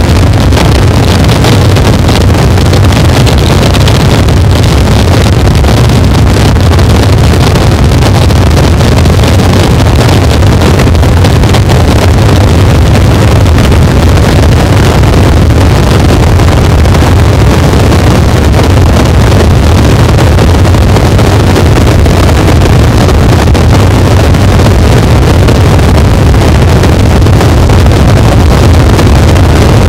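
Harsh noise wall: an unchanging, crunchy wall of distorted electronic noise at full loudness, heaviest in a deep rumble at the bottom.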